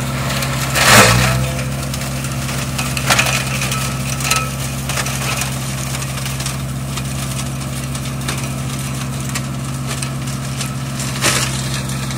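Euroclass 21 tractor-driven flail mulcher shredding pruned cherry branches over a steady tractor engine hum, with sharp cracking crunches as branches hit the flails. The loudest is about a second in, and shorter ones come around three, four and eleven seconds.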